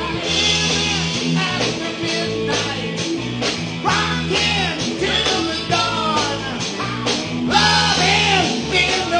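Live rock band playing with a singer over electric guitar, bass and drums, the drum hits falling at a steady beat.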